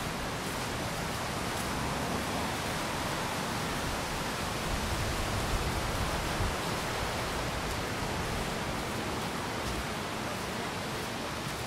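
Steady, even rushing noise of outdoor ambience, with no distinct events standing out.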